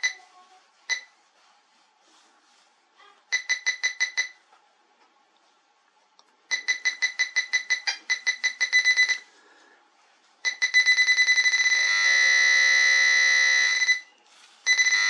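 Quest XPointer Max pinpointer beeping as a penny, a non-ferrous target, is brought toward its tip: groups of quick, high-pitched beeps that come faster as the coin nears, merging into a continuous tone near the end, breaking off briefly and starting again.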